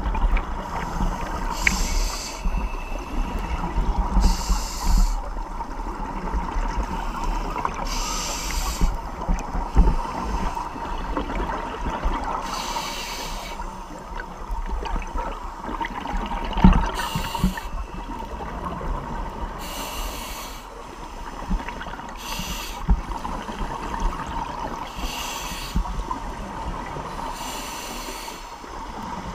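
Scuba diver breathing through a regulator underwater: a short hiss with each breath about every two to three seconds, over a low rumble of bubbles and water. A faint steady tone runs underneath.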